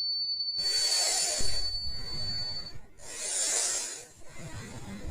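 A cartoon ghost's breathy, sighing laugh: long hissing exhalations, three of them, with a steady high whine that stops about halfway through.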